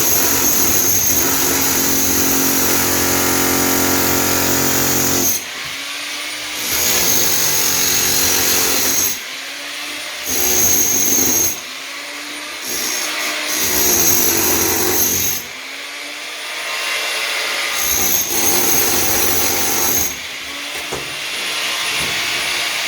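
Electric power tool running in repeated bursts: one run of about five seconds, then four shorter bursts, each starting with a rising whine as the motor spins up.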